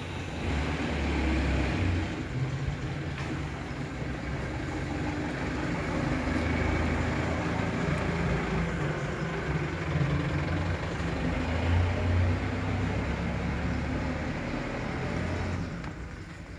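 Motor vehicle engine running nearby, a steady rumble that dies away about a second before the end.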